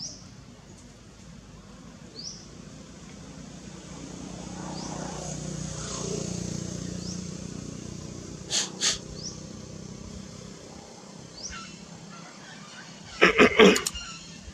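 Outdoor ambience: a short high rising chirp repeats about every two seconds over a low rumble that swells and fades midway. Two sharp clicks come a little past halfway, and a brief loud vocal burst comes near the end.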